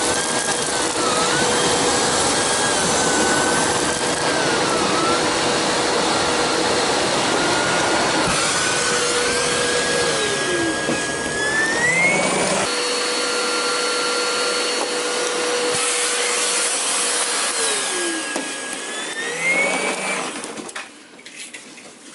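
Perfect canister vacuum running with a power nozzle on carpet. Its motor whine dips in pitch several times and twice rises sharply, as the load on it changes. The sound drops away near the end.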